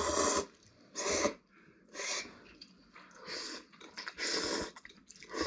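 People slurping noodles: five short, noisy slurps, about one a second.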